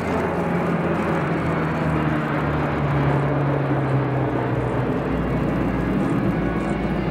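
C-130 Hercules four-engine turboprop transport aircraft flying past, a loud, steady engine and propeller roar whose low drone slowly falls in pitch during the first few seconds as it goes by.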